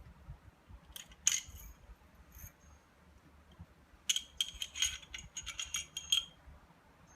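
Metallic clicks and clinks from a Ruger P97 pistol being handled: a couple of clinks about a second in, then a quick run of small clicks with a short metallic ring from about four to six seconds.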